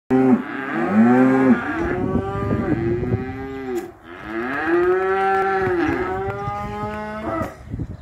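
Beef cattle mooing: three long, loud moos, each rising and then falling in pitch, the last about three seconds long.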